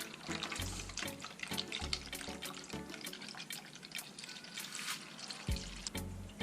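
Background music with a steady beat over water running as the radiator is flushed out.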